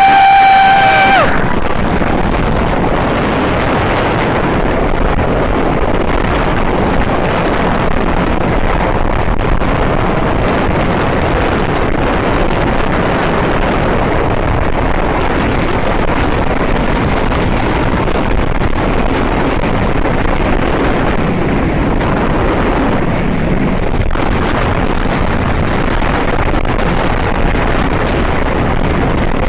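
A single horn blast, one steady high note that sags in pitch as it cuts off about a second in. It is followed by the steady drone of a small inflatable boat under way, its outboard motor running with wind on the microphone and water rushing past.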